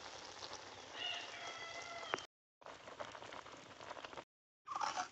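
A pot of greens, lentils and tomato boiling hard, a crackling, bubbling hiss; a rooster crows in the background about a second in. The sound cuts out briefly twice, and louder animal calls begin near the end.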